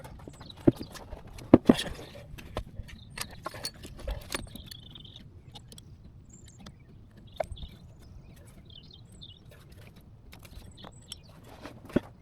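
Irregular metallic clicks and knocks from hand tools and engine parts being handled while a new timing belt is fitted to a 1.6 TDCi diesel engine, with a cluster of the loudest knocks about a second and a half in and a sharp one near the end.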